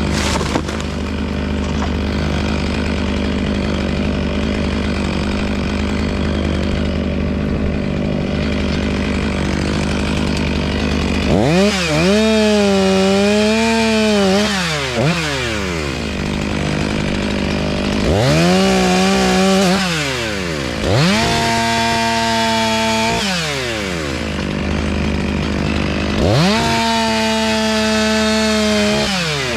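Two-stroke chainsaw idling, then revved to full throttle four times, each for two to four seconds. The pitch wavers while held at speed and falls back to idle each time.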